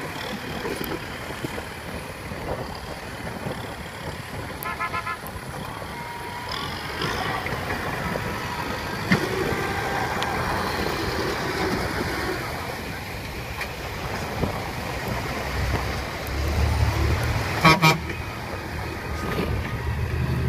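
Kubota M6040SU tractor's diesel engine working as its front blade pushes dirt, mixed with passing road traffic. A vehicle horn toots briefly about five seconds in and again, louder, near the end.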